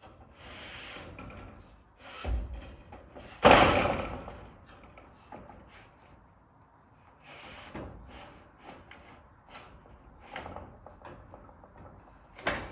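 Bangs and clatter of metal roofing panels being handled on the roof framing. The loudest is a sharp bang about three and a half seconds in that rings on and fades over a second or so. There is a smaller knock about two seconds in and another sharp one just before the end, with light rattling between them.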